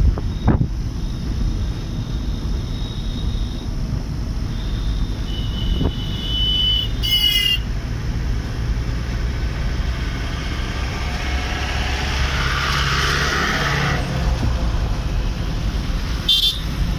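Car engine and road noise heard inside the cabin while driving: a steady low rumble, with a short high-pitched sound about seven seconds in and another near the end.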